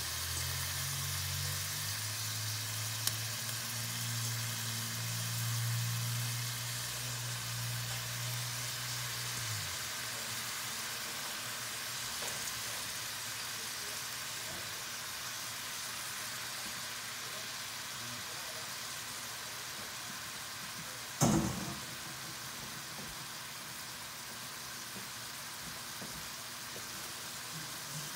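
Raw shrimp sizzling in hot oil and butter with garlic and onion in a stainless steel sauté pan, a steady hiss. A low hum runs under it for about the first ten seconds, and a single sharp knock comes about two-thirds of the way through.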